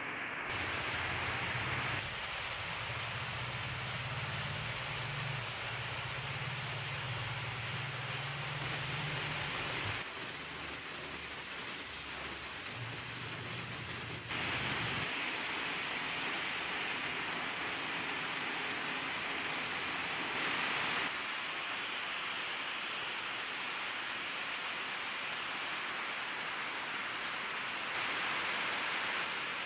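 Steady rain falling, a continuous hiss whose tone changes abruptly several times.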